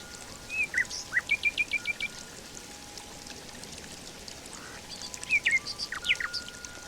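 Forest ambience: birds chirping in two bursts, the first about a second in with a quick run of six short notes, the second about five seconds in, over a steady trickle of running water. Faint held tones sit underneath.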